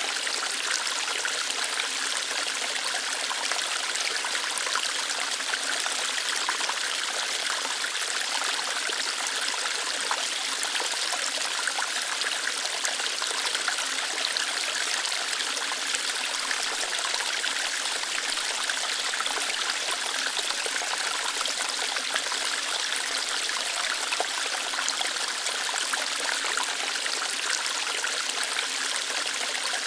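Small waterfall of water flowing lightly over rocks: a steady, even rushing and trickling with no change or distinct events.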